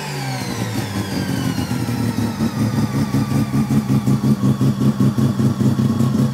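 Mazda 13B bridgeport rotary engine coming down off a rev, its pitch falling over the first couple of seconds, then settling into a choppy, pulsing idle at around 2000 rpm.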